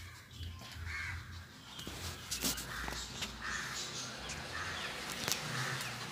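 Five or six short, harsh animal calls, about a second apart, over scattered clicks and rustling close to the microphone.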